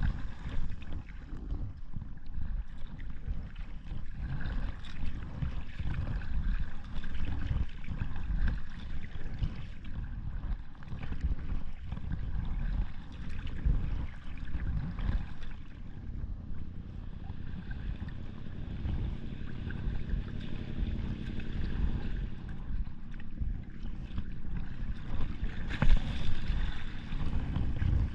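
Packraft being paddled across calm sea: water noise from the paddle and hull under a steady low rumble of wind on the microphone, with one brief louder burst near the end.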